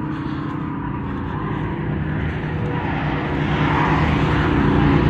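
Steady engine drone with a low hum, growing gradually louder.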